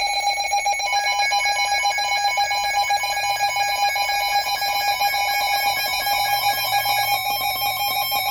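Weather-radio emergency alert tone: a loud, harsh electronic alarm of several steady pitches pulsing rapidly and continuously. It marks the start of a new severe thunderstorm warning.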